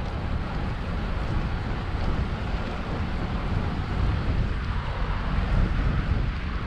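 Wind rumbling on the microphone of a camera riding on a moving bicycle: a steady low rumble with an even hiss above it.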